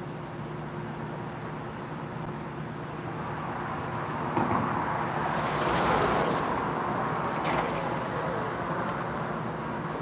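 A car passing by on the street: its tyre and engine noise swells to a peak about six seconds in, then fades away, over a steady low hum.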